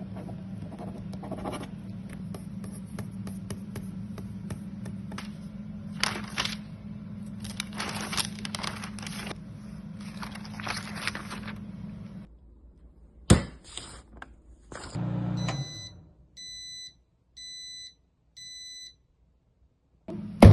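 A sequence of foley sound effects. First come irregular scraping and rustling over a steady low hum for about twelve seconds. Then a sharp knock, a brief dull thud, and four short electronic beeps about a second apart.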